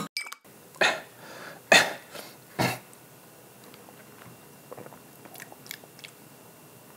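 Three short, sharp mouth sounds about a second apart as a spicy tomato-paste drink is tasted, followed by a few faint small clicks.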